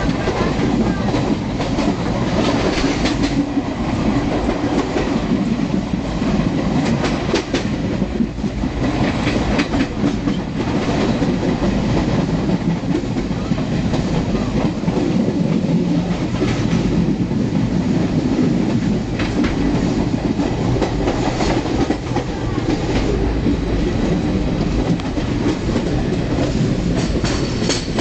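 Passenger train running on the rails, heard from on board: a steady low rumble with recurring groups of clickety-clack as the wheels pass over rail joints every few seconds.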